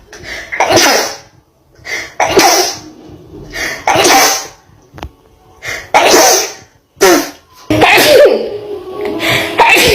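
A woman sneezing over and over: a fit of about six loud sneezes, one every second and a half to two seconds.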